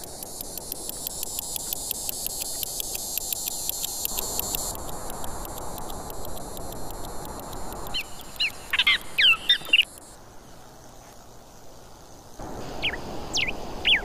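Nature sounds: an insect chirping in a rapid, steady pulse. Birds give short sweeping calls about eight seconds in and again near the end.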